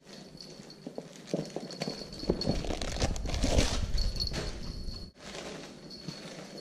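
Chihuahua's claws clicking and pattering on a tile floor as it runs and scrambles about playing with a toy, in quick irregular taps that are busiest through the middle.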